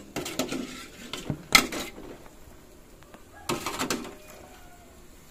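Metal ladle and aluminium cooking pots clattering, in three short bursts of knocks and scrapes, the loudest about a second and a half in.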